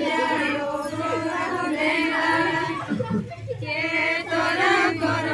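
A group of women singing a Santhali karma (karam) song together in unison: one sung phrase, a short break about three seconds in, then the next phrase.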